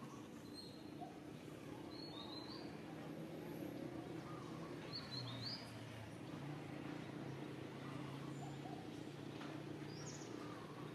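Wild birds chirping in short, high, upward-flicking notes: a pair about two seconds in, another pair around five and a half seconds, and one near the end, all over a faint steady low hum.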